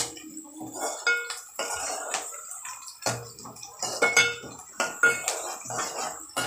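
Steel utensil clinking and knocking against a stainless-steel pan of onions: irregular clanks, a few a second, some with a short metallic ring.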